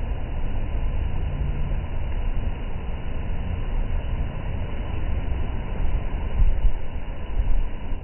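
Rough sea surf washing in and breaking against the concrete tetrapods of a sea wall: a steady deep rushing wash that surges louder twice near the end.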